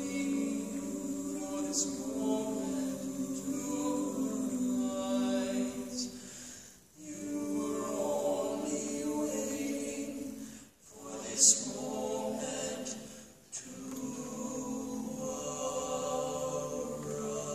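Male barbershop quartet singing a cappella in close four-part harmony: held chords with short breaks between phrases. A single sharp click, the loudest sound, comes about two-thirds of the way through.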